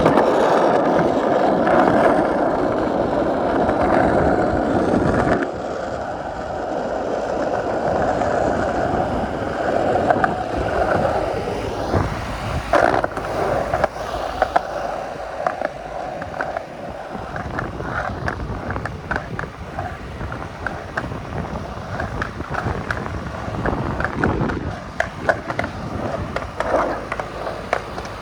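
Skateboard wheels rolling steadily over pavement. The rolling is loudest for about the first five seconds, and from about halfway on it is broken by frequent sharp clicks and knocks.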